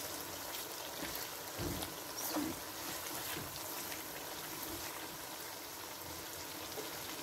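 Lamb curry sizzling in a nonstick wok with a steady hiss while a silicone spatula stirs it, with a few soft scrapes.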